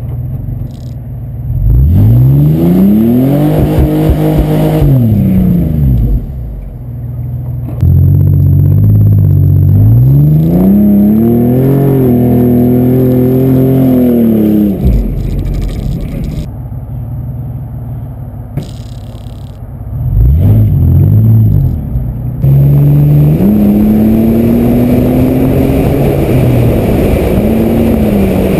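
A vehicle's engine revving, its pitch rising and falling several times, then climbing steadily near the end as it accelerates, over a rushing noise of wind and tyres.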